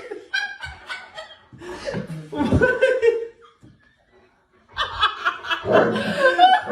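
People laughing, in two bouts with a short quiet gap about halfway through; the second bout is louder.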